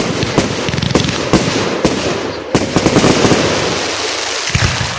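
Display fireworks going off in a rapid barrage: many sharp bangs and dense crackling, easing off near the end.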